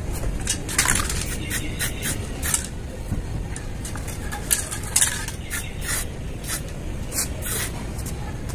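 Aerosol spray-paint can with a trigger handle hissing in a string of short, uneven bursts as paint is sprayed onto a steel car wheel, over a steady low background rumble.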